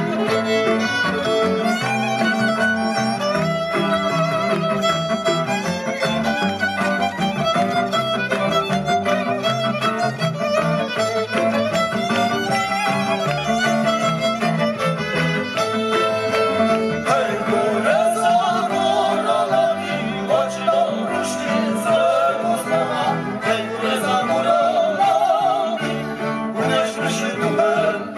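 Polish highlander (góral) string band playing a lively instrumental tune: fiddles carry a quick, wavering melody over bowed bass and double bass.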